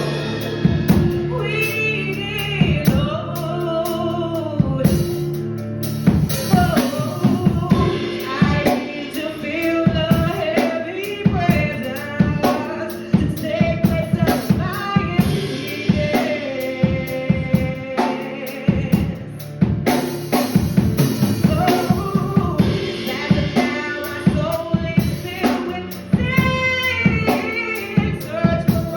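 Live worship music: sung voices over a band with a drum kit keeping a steady beat.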